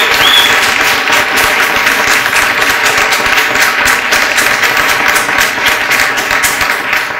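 Wedding guests applauding, a dense, loud round of clapping, with a steady droning tone sounding underneath.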